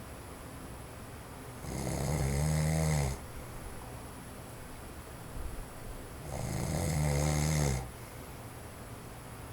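A man in his forties snoring in his sleep: two low snores about four and a half seconds apart, each lasting about a second and a half, over the faint steady whoosh of an electric fan on its low setting.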